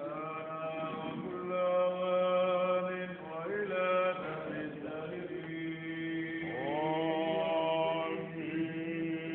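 Orthodox church chant: a melody sung in long, slowly bending notes over a low drone note held steadily beneath it.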